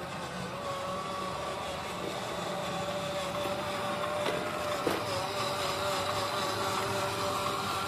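Huina 1561 1/14-scale RC ladder fire truck driving on a concrete floor: the steady whine of its electric drive motor and gears, getting louder as it comes closer. Two light clicks a little past the middle.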